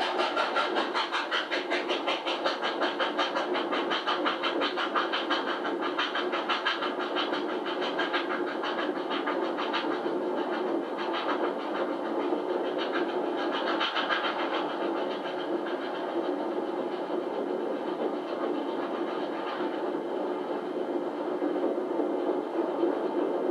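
Steam locomotives running at speed on parallel tracks: a fast, even chuffing beat mixed with wheel and rail noise, the beat clearest in the first half and fainter later. The sound is thin, replayed through a television speaker.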